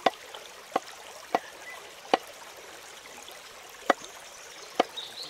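Water running in a steady trickle, with six sharp knocks at uneven intervals over it.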